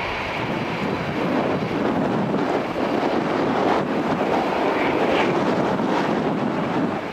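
Boeing 737-400's CFM56-3 jet engines running at taxi power as the airliner rolls by, a steady rushing noise, with wind buffeting the microphone.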